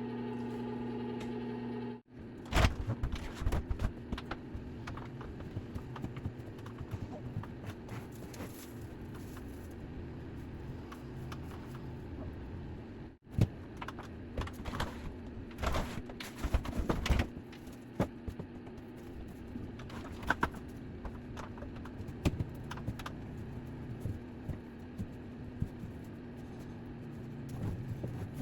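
Irregular light clicks and knocks over a low background hum. The knocks come in clusters a few seconds in and again in the middle. In the first two seconds there is a steady humming tone, which cuts off suddenly.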